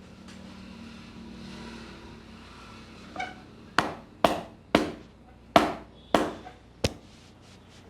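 Hands working over the head in an Indian head massage: soft rubbing at first, then about seven sharp, loud slaps struck in quick, uneven succession from about three seconds in, the first one weaker.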